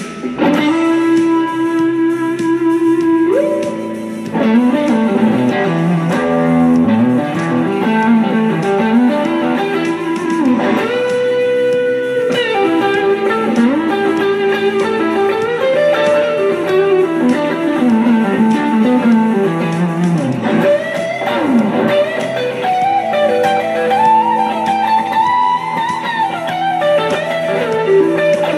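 Electric guitar, a Telecaster-style single-cutaway, playing a blues-rock lead solo: sustained single notes with frequent string bends and slides up and down, over steady lower notes.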